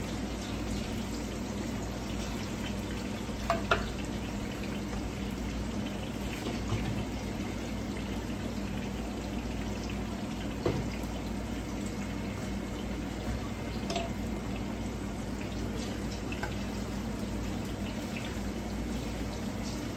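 Ripe plantain slices sizzling steadily in hot oil in a frying pan, with a few light clicks of a utensil against the pan as the slices are turned.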